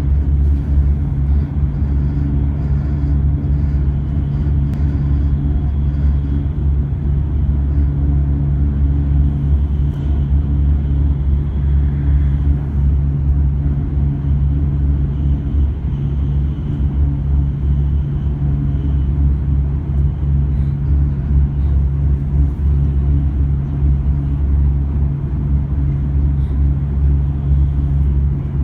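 Hokuriku Shinkansen train running, with a steady low drone and hum that stays unchanged throughout; this is the unusual noise (異音) heard while the train is in motion.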